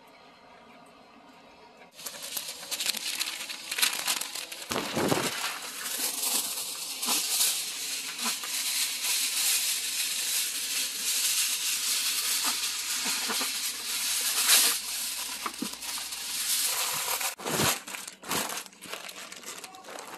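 Stiff white paper crinkling and rustling as it is folded and wrapped around a smoked brisket, starting about two seconds in, with a couple of dull thumps from handling.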